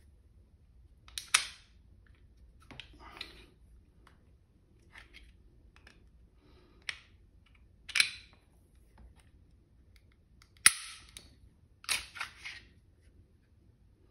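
Glock 19 pistol being field-stripped by hand: a handful of separate sharp metallic clicks and clacks from the slide, slide lock and trigger as the slide is worked and taken off the frame, the sharpest about ten and a half seconds in.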